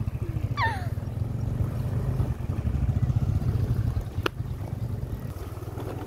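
Motorcycle engine running at low road speed, heard from on the bike, a steady low rumble that eases somewhat about five seconds in. A brief falling cry comes about half a second in, and a sharp click just after four seconds.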